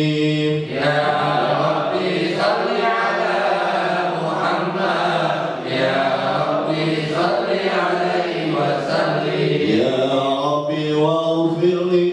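A man chanting an Arabic sholawat, devotional praise of the Prophet Muhammad, into a handheld microphone: one long, melodic line of drawn-out notes that slowly rise and fall.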